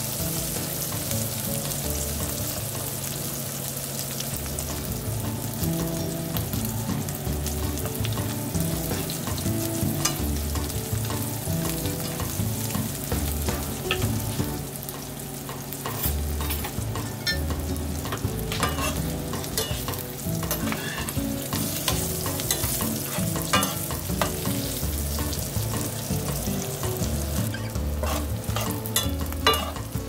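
Cicadas frying in hot canola oil in a frying pan, sizzling steadily as they are cooked until crunchy. Chopsticks and a spatula click and scrape against the pan as they stir, more often in the second half.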